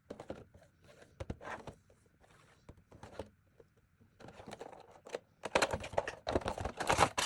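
A Funko Pop box being opened and its packaging handled: scattered light taps and clicks, then denser crinkling and rustling from about five and a half seconds in.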